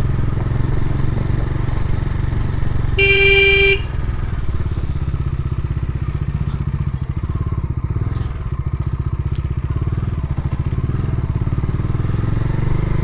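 Bajaj Dominar 400's single-cylinder engine running steadily while under way. A vehicle horn sounds once, for just under a second, about three seconds in.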